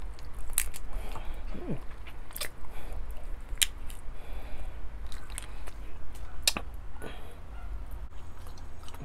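Close-up eating sounds: crab-leg and shrimp shells being cracked and picked apart by hand, giving sharp little cracks every second or two, with biting and chewing of the seafood.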